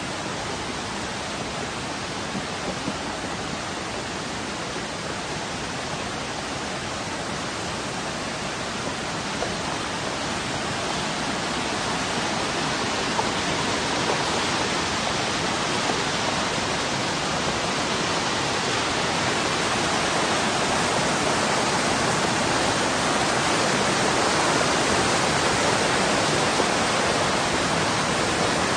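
Muddy floodwater rushing through a street in a steady, continuous noise like a torrent, growing gradually louder.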